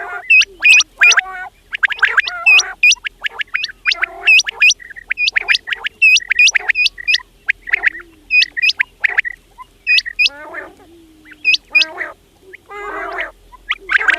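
Quails calling in a rapid, near-continuous run of short, sharp, hooked chirps, mixed with harsher rasping calls. The calling thins out briefly about two-thirds of the way through.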